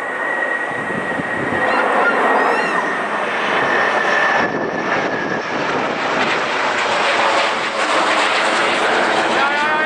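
Military aircraft flying over: a loud, steady broad roar with a high steady whine that fades out about halfway through while the roar carries on.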